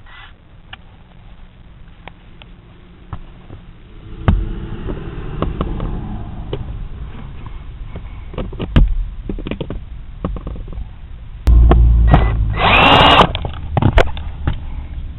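Power drill or driver running in short bursts, loudest for about two seconds near the end, with clicks and knocks of parts being handled.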